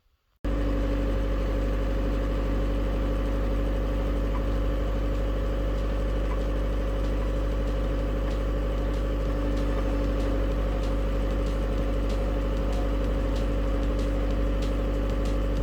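An engine running steadily at idle, starting abruptly about half a second in, with faint light clicks in the later part.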